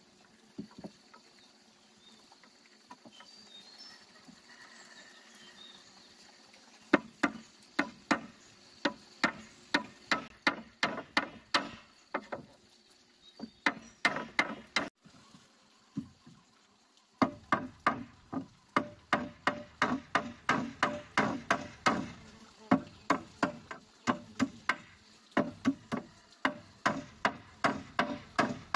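Steel claw hammer driving nails into wooden boards. The hammering starts about seven seconds in as a steady run of sharp blows, about two to three a second, with a couple of short breaks.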